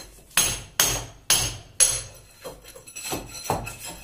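Hammer blows on a wall, knocking through the hole for an air conditioner's refrigerant pipe. Four hard, ringing strikes land about half a second apart, followed by a run of lighter, quicker knocks.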